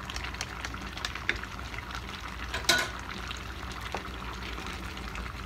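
Thick chicken stew simmering and spattering in a pan on a gas burner while a wooden spatula stirs it, with small crackles throughout. One sharp clack comes about two and a half seconds in.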